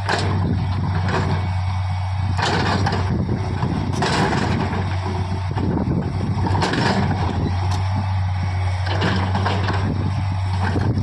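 Diesel engine of a JCB heavy machine running steadily under load with a constant low hum, and a few sharp knocks over it.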